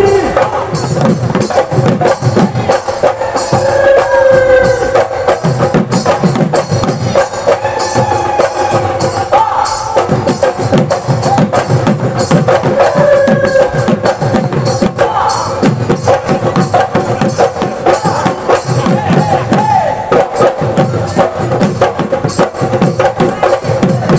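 Bihu dhol drums beaten in a fast, driving rhythm by dancing drummers, with a sliding melody line held above the beat.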